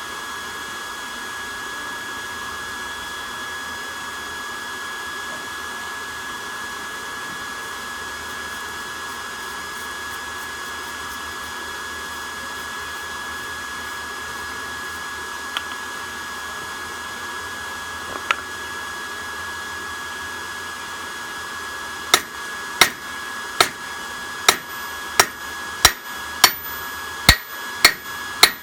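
A steady electric blower whine, like a hair dryer or small fan, runs throughout. About three quarters of the way in, hammer blows on a railroad-track anvil begin: about ten sharp, ringing strikes, roughly one and a half a second.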